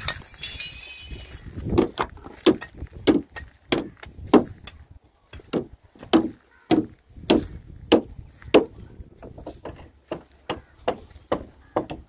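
Mason's hammer striking and chipping a stone building block in a steady rhythm of sharp knocks, about two a second, beginning a couple of seconds in with a brief pause near the end.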